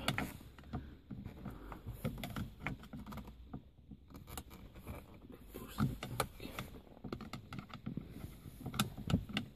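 Scattered light clicks and taps of a small tool prying at the plastic gear-shift mechanism inside a Ford Focus ST's centre console, working to pop a part of the linkage out.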